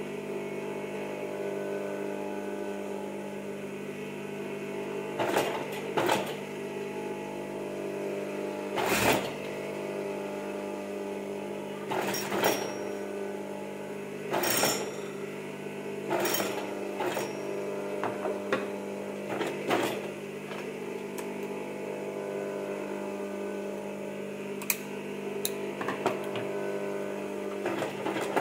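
Electric sewing machine running with a steady motor hum while stitching silver cord trim onto fabric, broken by about a dozen short, louder bursts.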